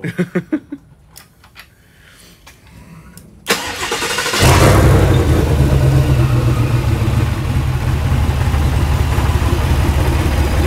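Whipple 2.9-supercharged 6.2 LT V8 starting: about three and a half seconds in, the starter cranks briefly and the engine catches. It then settles into a loud, steady idle.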